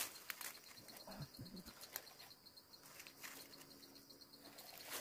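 Faint rustling of leafy branches being handled, with a few sharp clicks as twigs are snipped with hand pruning shears, over a steady high insect chirr.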